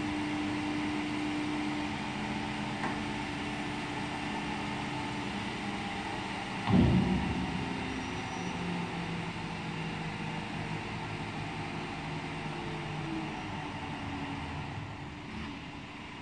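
Diesel engine of heavy construction machinery, a truck crane or excavator, running steadily. A loud knock comes about seven seconds in, with a fainter one earlier.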